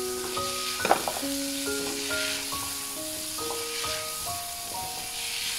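Diced potatoes, long beans and red pepper sizzling in an oiled wok as a spatula turns them over, with one sharper knock about a second in. Background music of held notes plays along.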